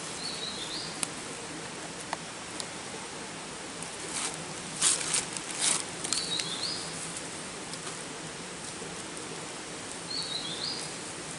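A forest bird repeats the same short, high call phrase three times, a few seconds apart, over a steady outdoor hiss. About halfway through come a few loud bursts of rustling and crackling.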